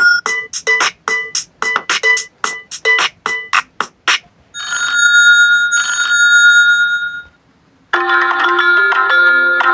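Honor 7A (EMUI) phone tones played one after another. First comes a quick melody of short plucked notes, about four a second, then two electronic ring bursts, then, after a short pause, a fuller ringtone tune starting near the end.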